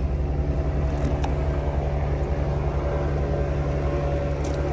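A boat engine idling steadily with a low, even throb. A few light clicks come about a second in and again near the end as the plastic bait basket is handled.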